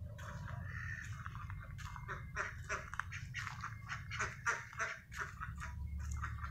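White domestic ducks quacking in a quick run of short quacks.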